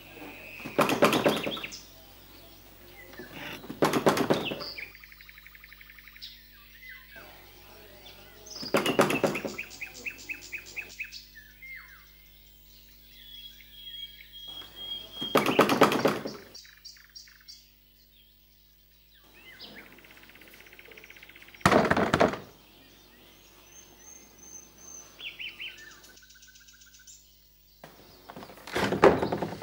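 Birds chirping, with short trills and whistles. Six short, loud thuds break in about every five to six seconds and are the loudest sounds.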